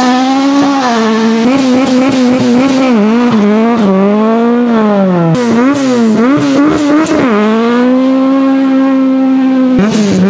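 Rally-prepared Ford Escort Mk2 engines revving at a stage start. First one car blips the throttle in quick rising and falling revs. Then another blips, and from about seven seconds in it holds high revs steadily for a couple of seconds, as before a launch.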